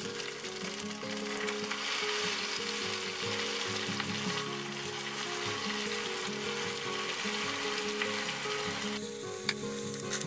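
Crushed tomato sizzling as it is poured into a hot nonstick wok of browned ground beef and vegetables. The hiss eases about nine seconds in, when a wooden spatula starts stirring it in with a few scrapes and knocks.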